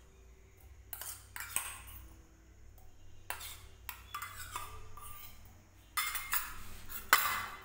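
Steel spoon scraping and clinking against a stainless steel bowl as chopped watermelon is scooped out, in short irregular strokes. Near the end come a few louder knocks and clinks as the glasses on the tray are moved.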